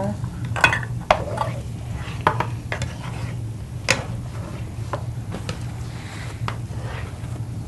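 Spatula scraping and tapping in a hot skillet, irregular clinks as ground meat is stirred and broken up while it browns.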